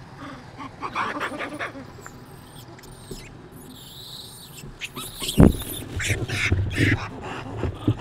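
Monkeys calling: short squeaks and chatter, with high wavering squeals near the middle. There is a single loud thump about five and a half seconds in.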